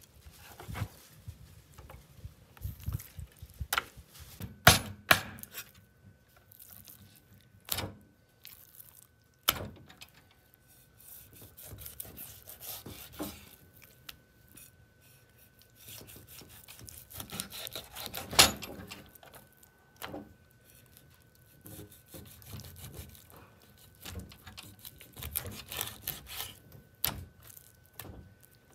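Kitchen knife cutting a whole raw fish into steaks on a wooden cutting board: scattered sharp knocks as the blade strikes the board, with wet slicing and scraping between them.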